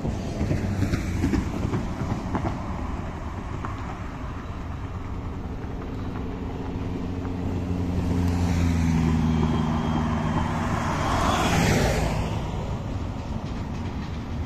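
Double-stack container freight train rolling across a bridge, a continuous low rumble, while road vehicles pass underneath. An engine hum builds through the middle, and a car sweeps past close by about twelve seconds in, the loudest moment.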